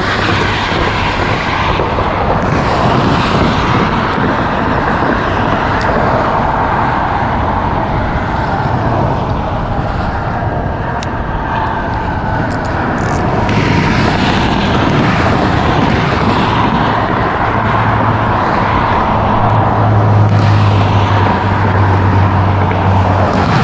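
Steady road traffic noise, vehicles running over the bridge in a continuous rumble with a low hum that grows stronger near the end.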